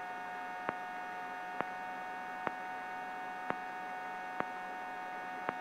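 Steady electrical hum in the helicopter's intercom audio between radio calls, with a faint tick about once a second.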